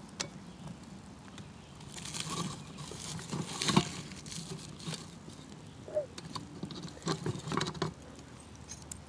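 Rustling, scraping and a few light knocks as a lidded camp pan of muffin mix is lifted with a pot gripper and settled into the campfire, with the loudest scraping a little past the middle.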